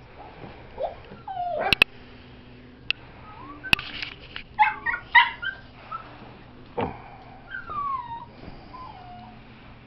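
A tiny puppy whimpering and yipping: a cluster of short high yips about halfway through, then drawn-out falling whines near the end, with a few sharp clicks before them.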